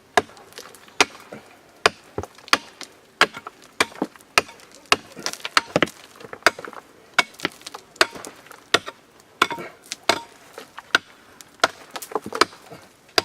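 Large hand pick striking very hard concrete again and again, sharp hits about two a second. The pick makes little headway: the concrete is too hard to get through by hand.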